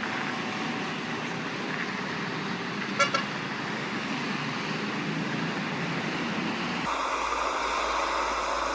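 Heavy road-vehicle and traffic noise with a short double honk of a vehicle horn about three seconds in. Near the end the sound cuts abruptly to a different steady engine noise.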